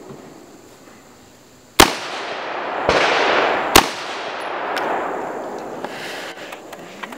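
Three AR-15-style rifle shots fired slowly through a barricade, about a second apart, the first and last the loudest, each trailing off in a long echo.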